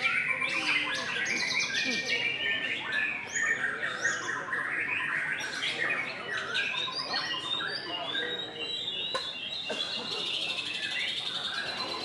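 Caged white-rumped shamas singing in competition, several birds at once: a dense, unbroken tangle of varied whistles, trills and rapid chattering phrases.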